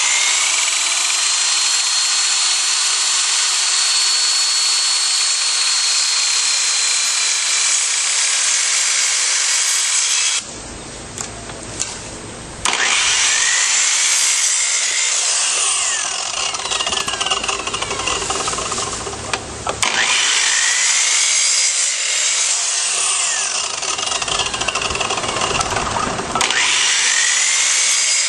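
Chainsaw cutting through a storm-downed tree branch at full speed. It drops back to a quieter running sound for about two seconds partway through, then cuts again, its pitch dipping and rising repeatedly as it bogs under load.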